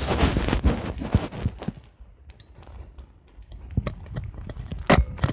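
Handling noise from a hand-held Olympus Pen EE-3 film camera: rustling and rubbing for the first second and a half, then scattered small clicks, with one sharp, loud click about five seconds in.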